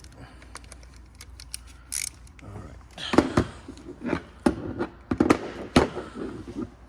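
Hand tools clicking and knocking against metal as the bolts of an engine's PCV/oil separator cover are loosened, a few sharp knocks in the second half.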